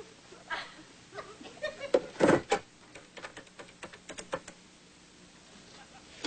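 Small handling noises: a couple of soft knocks about two seconds in, then a quick run of light clicks over the next second and a half, as a desk telephone is picked up and handled.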